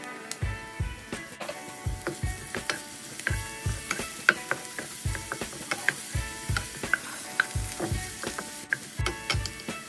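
Wooden spatula stirring grated garlic and ginger in a nonstick frying pan: irregular scraping clicks and knocks several times a second, over the sizzle of the oil.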